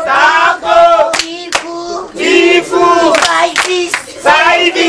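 A group of voices singing a chant together, with several sharp hand claps among the singing.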